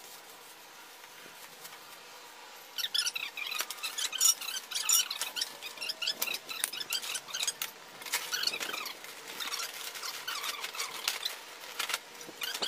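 Folding camping cot being collapsed and packed: starting about three seconds in, its metal frame joints make short, irregular high squeaks and clicks amid fabric rustling.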